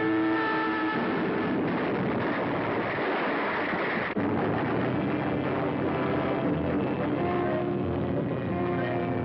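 1940s cartoon soundtrack: a steady rushing noise of destruction effects over the wrecked, burning power plant, mixed with an orchestral score of held chords. The sound breaks off and changes abruptly about four seconds in.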